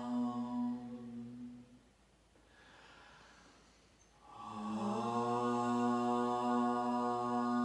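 Two voices, a woman's and a man's, chanting a mantra together on one long held note. The chant fades out about two seconds in, there is a quiet breath, and it starts again a little after four seconds with a slight rise in pitch before holding steady.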